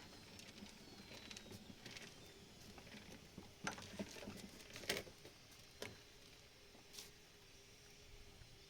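Quiet background with scattered faint clicks and taps, the loudest a few in the middle, over a faint steady hum.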